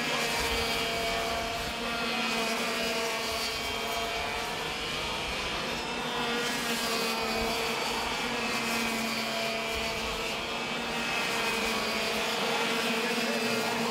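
Racing kart engines running at high revs as karts lap the circuit, a steady buzzing drone whose pitch rises and falls a little.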